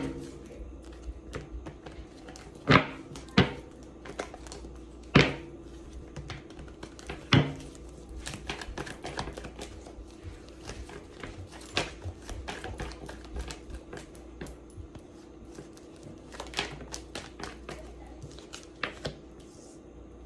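A deck of tarot cards handled on a cloth-covered table: a few sharp taps in the first seven seconds or so, then a long run of light irregular card clicks and flicks as the deck is shuffled and cards are laid down.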